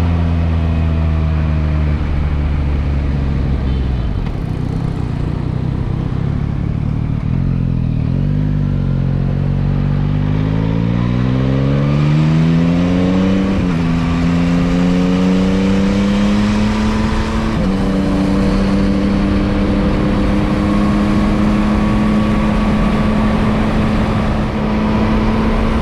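Yamaha MT-09's inline three-cylinder engine under way: it holds a steady speed, eases off, then pulls up through the revs with an upshift about fourteen seconds in and another near eighteen, and settles into a steady cruise. Wind rushes over the microphone throughout.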